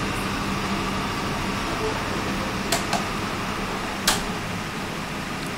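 Steady background hum, as of a fan or air conditioner, with three sharp clicks: two close together about halfway through and a louder one a little over a second later.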